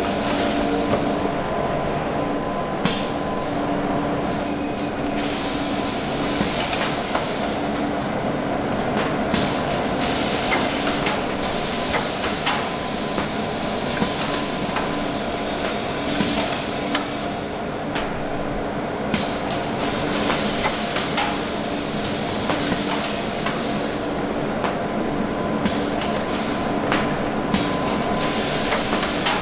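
Food-factory production-line machinery running steadily in an ice cream plant: a constant machine hum with a few steady tones. Rushes of hissing come and go every few seconds, with scattered clicks and knocks.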